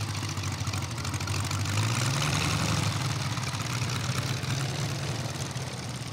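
Seven-cylinder 800 cc VM R7-800 radial engine of a giant-scale Stearman PT-17 RC biplane running steadily at low throttle as the plane lands and rolls out. Its pitch rises a little about two seconds in.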